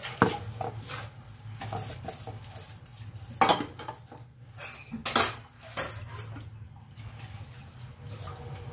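Dishes, a pot and cutlery clattering and clinking in a kitchen sink as they are washed by hand, with a few sharp knocks, the loudest about three and a half and five seconds in.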